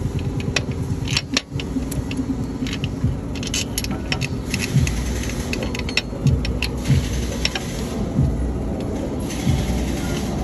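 Scattered metallic clicks and clinks as a new belt tensioner and its bolts are handled against a diesel engine's front bracket, over a steady low rumble that grows heavier about halfway through.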